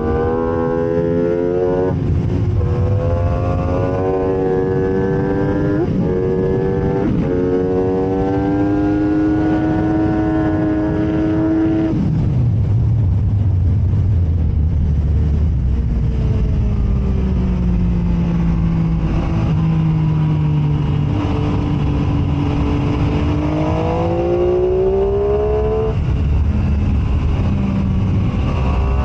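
MV Agusta F3 675's inline three-cylinder engine at full throttle, its pitch climbing and breaking with each upshift. About twelve seconds in the throttle closes and the revs fall under braking and downshifting, then the engine pulls hard again near the end.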